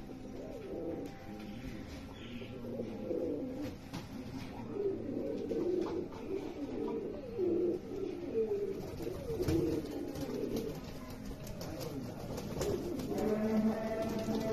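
Fantail pigeons cooing, many calls overlapping in a continuous low burble, with a few faint clicks.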